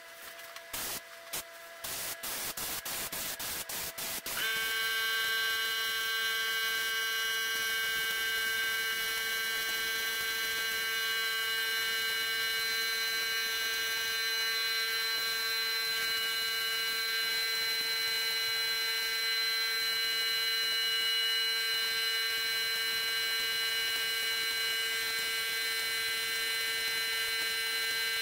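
Short on-off bursts of hiss. About four seconds in, an electric motor starts and runs with a steady hum while paint is sprayed from an HVLP spray gun, its air hiss running under the hum.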